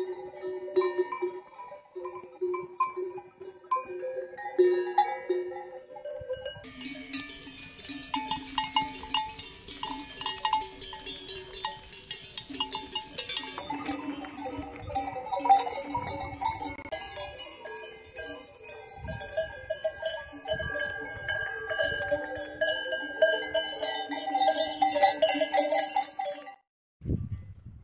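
Many sheep bells clanking and jangling unevenly at several pitches as a flock of sheep walks along a rocky path. The bells cut off abruptly about a second before the end.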